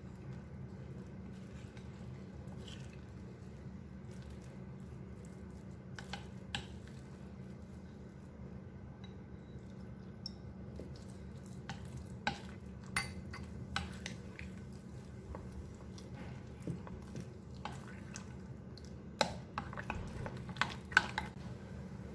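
A metal spoon stirs water chestnut flour and water into a batter in a glass bowl, with scattered clinks of spoon against glass that come more often in the second half. A steady low hum runs underneath.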